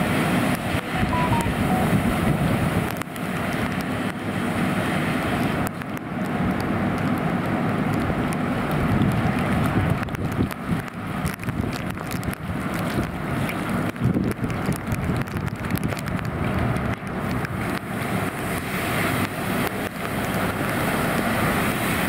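Steady noisy rumble of a fire engine running at a car fire. A hose stream is spraying water onto the burning car, and there is a hiss and scattered crackles throughout.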